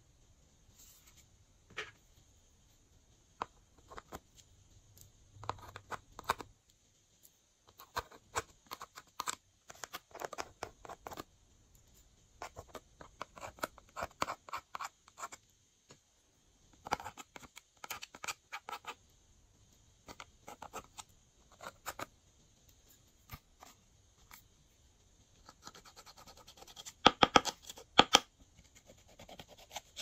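Glossy slime being squeezed and worked by hand, giving bursts of sticky clicks and crackles with short pauses between them. The loudest bursts come near the end.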